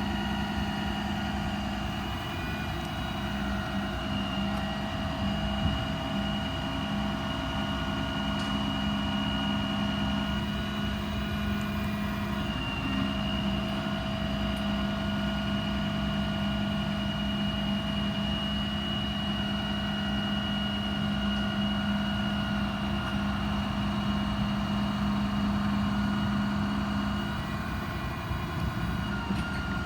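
The truck's Cummins 6.7 diesel running steadily while the IMT 7500 crane's hydraulics work at full speed, a constant hum with steady whining tones that shift a few times as the crane functions change.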